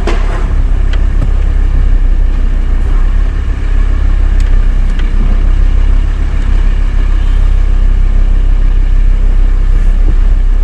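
Car being driven, heard from inside the cabin: a loud, steady low rumble of engine and road noise, with a few light clicks.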